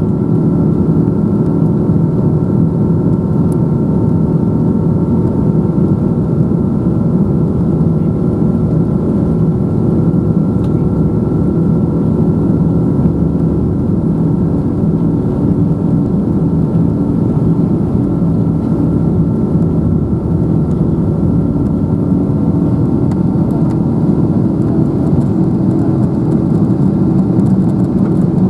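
Boeing 777-200's Pratt & Whitney turbofan engines running steadily at low power while the jet taxis, heard inside the cabin over the wing: a constant deep rumble with a steady whine on top.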